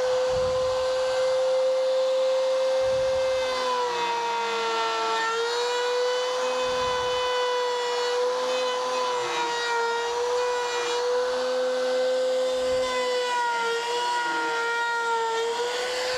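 Small trim router running at full speed, a steady high whine, routing a hinge mortise in a wooden cabinet frame. Its pitch sags briefly twice, at about four seconds and near the end, as the bit takes a heavier cut.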